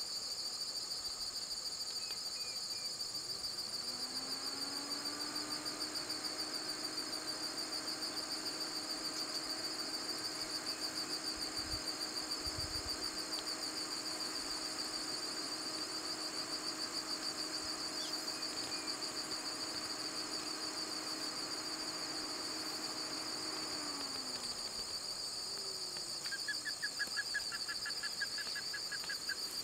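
A steady, high-pitched chorus of insects with a fast, even pulse. A faint low hum rises in about four seconds in and fades away about twenty seconds later, and a short rapid trill comes near the end.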